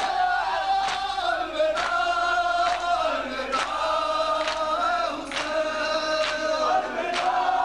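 A male crowd chanting a noha (Shia lament) in unison with the reciters. Sharp strokes of matam, the rhythmic beating of mourning, land about once a second and keep time.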